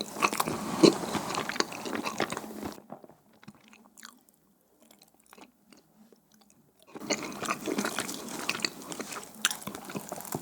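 Close-miked chewing and biting of sticky, chewy mandu hotteok dumplings, a dense run of small mouth clicks. The chewing stops for about four seconds in the middle, leaving near silence, then resumes.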